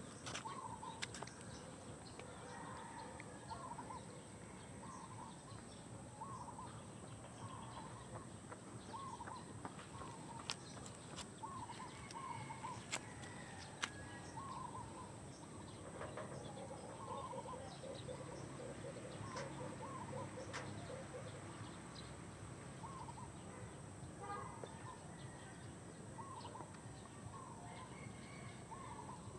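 Birds calling in short repeated notes, one every second or two, with a steady high-pitched tone behind them and a few faint clicks.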